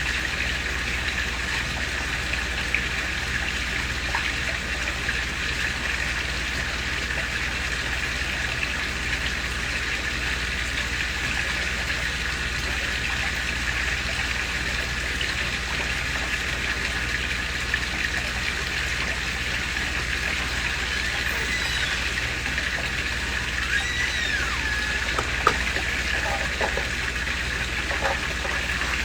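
Koi pond waterfall splashing and gushing steadily, with a steady low hum underneath.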